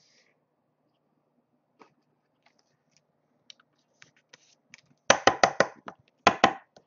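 Rigid clear plastic card holders being handled: faint light taps at first, then a quick run of sharp plastic clicks about five seconds in and two more shortly after.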